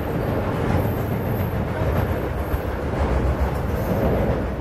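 Norfolk Southern intermodal freight train's trailer and container cars rolling across a steel truss bridge at about 39 mph: a steady rumble of wheels on rail.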